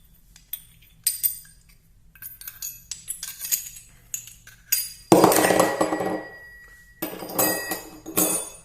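Metal tools and bits from a hand tool kit clinking and clattering as they are handled, with a louder metallic clang about five seconds in that rings and fades over a couple of seconds.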